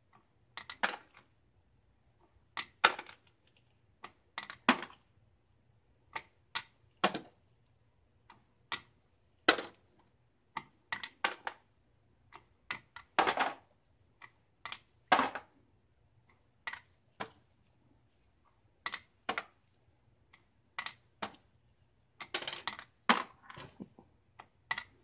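Small lead bullet cores clicking as they are set one by one on a digital scale's pan and tossed into plastic sorting tubs. The clicks come irregularly, about one every second or two, some of them doubled.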